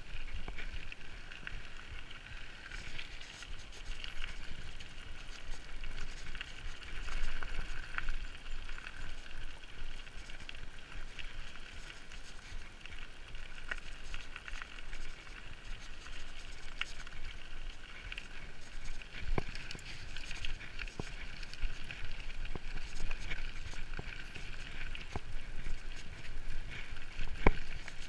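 Mountain bike riding over a dirt forest track: steady tyre-on-dirt rolling noise with a few sharp knocks and rattles as the bike goes over bumps, the clearest about two-thirds of the way through and near the end.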